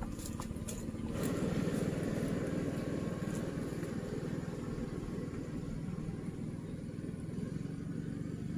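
A small engine running steadily, growing louder about a second in.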